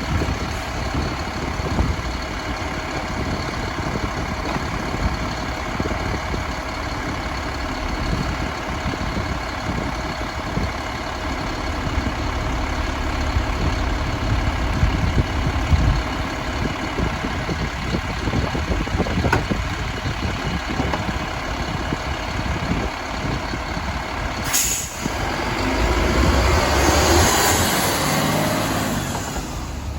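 Mack LEU garbage truck with a Labrie Helping Hand side loader, its diesel engine and hydraulics running steadily with a constant whine. About 25 seconds in a loud hiss of air starts suddenly and fades over several seconds.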